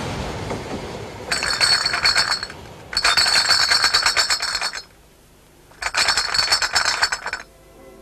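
Glass bottles rattling and clinking together in a crate, in three bursts of quick clinks a second or two long, with short pauses between them.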